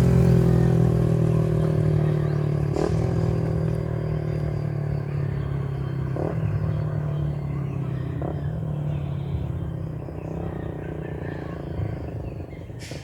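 Suzuki Raider 150 FI single-cylinder motorcycle engine pulling away after a flyby. Its pitch drops in the first seconds, then the note fades steadily as the bike moves off, broken briefly about three times.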